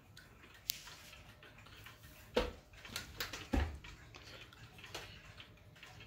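Mechanical wall clocks ticking, with two louder knocks about two and a half and three and a half seconds in.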